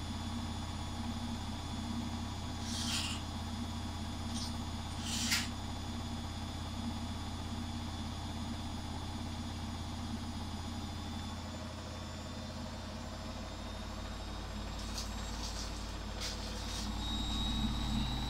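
Samsung WF80 front-loading washing machine in the main spin of a spin-only cycle: the drum spins with a steady motor hum, broken by a few brief hissing noises. Near the end the hum grows louder and a high whine comes in.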